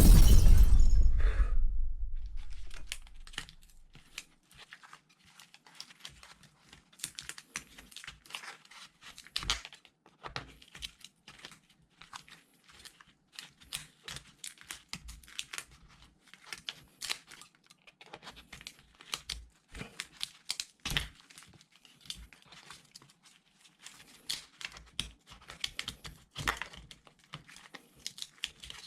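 A loud thump at the start that dies away over about two seconds, then a long run of small, irregular crackling and tearing snaps of battery adhesive and plastic as the glued battery of a MacBook Pro 15-inch Retina is worked loose.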